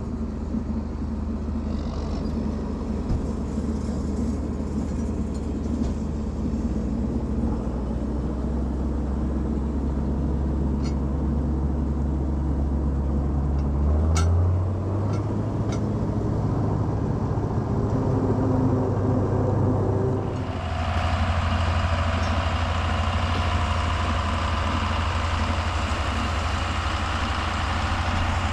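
Heavy farm machinery engine running steadily. Its pitch steps up about halfway through, and a few seconds later a harsher, hissier running sound takes over.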